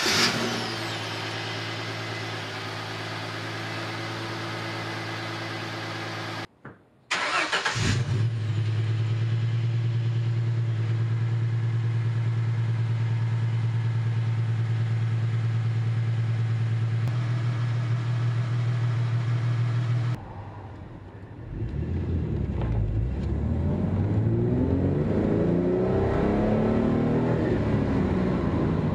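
1996 Ford Mustang 3.8-litre V6 idling steadily through its original single 2-inch exhaust after starting up. After a short break it starts again and idles, louder, through a new true dual 2.5-inch Flowmaster Force II cat-back. In the last third the same engine revs up and down under way, heard from inside the cabin.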